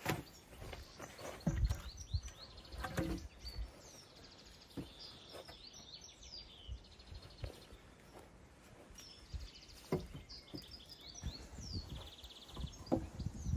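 Small birds chirping and trilling in the background, with short downward-sweeping calls and rapid trills coming every second or two. Scattered light knocks and rustles sound underneath.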